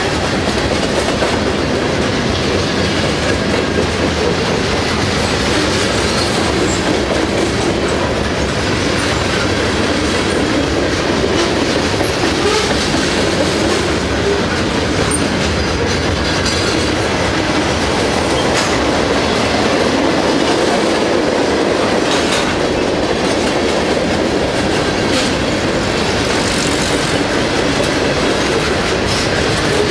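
Freight cars of a mixed freight train (covered hoppers, boxcars, centerbeam lumber cars) rolling past close by: a steady loud rumble of steel wheels on rail, with irregular knocks as the wheels cross rail joints.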